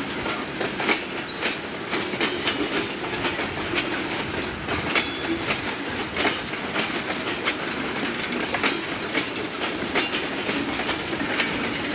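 Freight train of railroad tank cars rolling past, the wheels clicking over rail joints in a steady clickety-clack of about two clicks a second over a continuous rumble.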